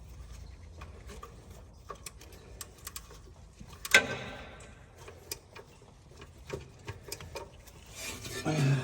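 Scattered light clicks and taps of hand tools and metal parts being handled, with one louder clank about four seconds in.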